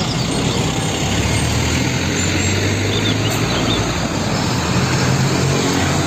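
Heavy diesel dump truck driving by on a road: a steady low engine hum under tyre and traffic noise.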